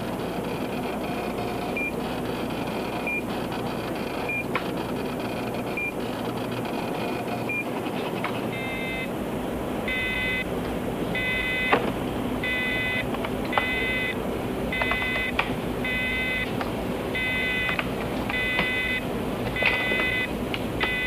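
Computer terminal alarm: single short high beeps about every second and a half, then from about eight seconds in a harsher multi-tone beep repeating about once a second. This is the emergency alarm for a reactor going supercritical. A steady machine-room hum runs underneath.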